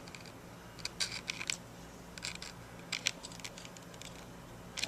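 Metal cable plug scraping and clicking against a MacBook Pro's port as it is fumbled into place one-handed: short clusters of clicks about a second in, again around the middle and near the end, over a faint steady low hum.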